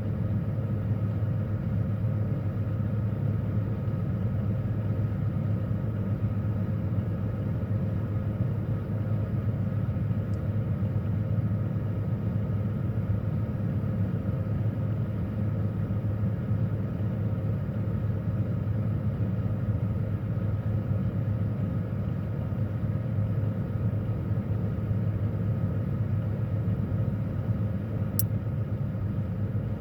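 Refrigerator running, heard from inside the closed fridge: a steady low hum with a faint tone above it. A tiny click comes about ten seconds in and another near the end.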